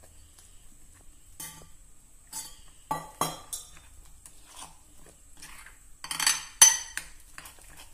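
Steel spoon stirring and scraping in a glass bowl, mixing gram flour and water into a batter, with scattered clinks. There is a louder run of clinks and scrapes about six seconds in.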